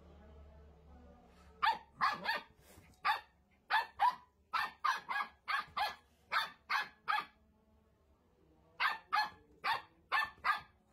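Black puppy barking in short, high, sharp yaps, in quick runs of several barks, with a pause of about a second and a half before a last run near the end.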